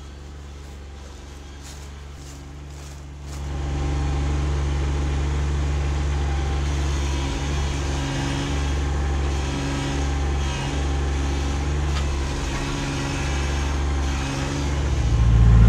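Kubota B2601 compact tractor's three-cylinder diesel engine running steadily as the root rake grapple is pushed through the soil. It grows louder about three and a half seconds in.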